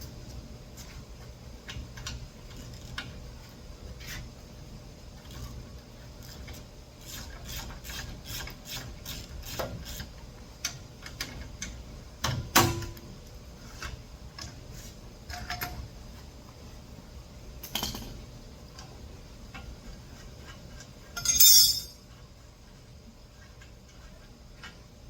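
Hand tools working on a bicycle's fork and headset: scattered metal clinks and taps, a loud knock about halfway through, and a brief, loud, harsh metallic rattle near the end.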